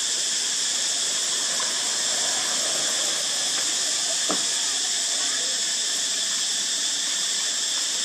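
Dense chorus of cicadas, a loud, steady high-pitched drone that does not let up. A single short knock sounds about four seconds in.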